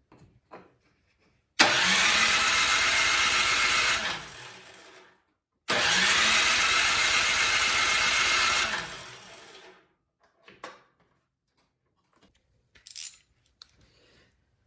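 Craftsman snowblower engine being cranked twice, each run lasting about two and a half seconds and then winding down, without the engine catching: the no-start that is being troubleshot. A few light knocks near the end.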